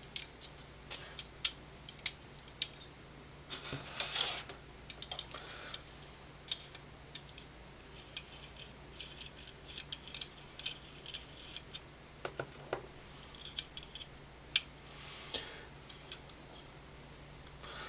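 Steel parts of a Makarov pistol with a .22 LR conversion kit being taken apart by hand: many sharp metallic clicks, with a few short scrapes as parts slide off, around four seconds in and again near the end.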